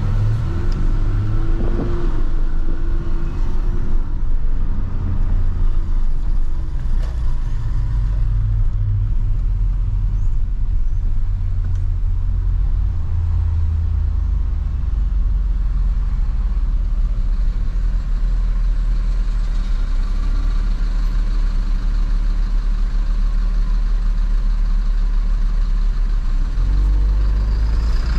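Mercedes-AMG GLA 45's 2.0-litre turbocharged four-cylinder engine and tyre noise while driving, a steady low drone. A short rise and fall in engine pitch comes near the start.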